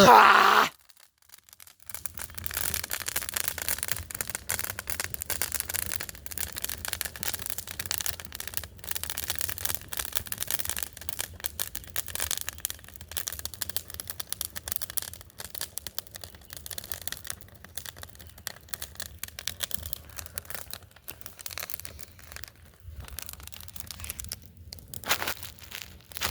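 Dry brush and twigs crackling and rustling, a dense continuous run of small cracks, over a low steady rumble. A short loud burst comes right at the start, then a second of quiet before the crackling begins.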